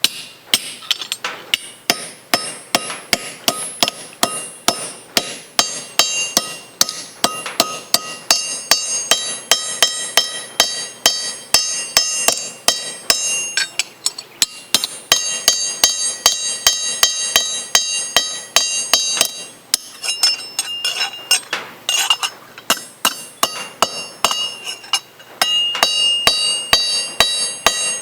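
Hammer blows cold forging a metal spoon into an arrowhead, about two strikes a second, each with a bright metallic ring.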